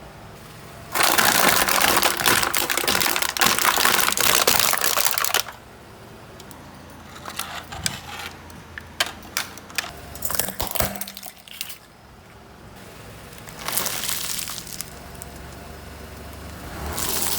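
A car tyre rolling over crunchy objects and crushing them: a dense spell of crackling and crunching lasting about four seconds, then scattered snaps and cracks, with another short burst of crunching near the end.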